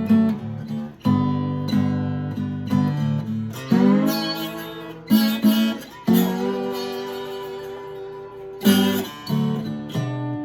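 Washburn dreadnought acoustic guitar played with a slide through a harmonized scale in D: plucked two-note shapes, with the slide gliding up into new notes about four and six seconds in, then a long ringing note before fresh plucks near the end.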